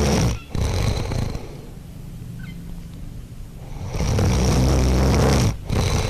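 Experimental noise recording: a rough, low swell that builds and breaks off twice, about four seconds apart. Each time it drops out for a moment, then comes back as a shorter tail.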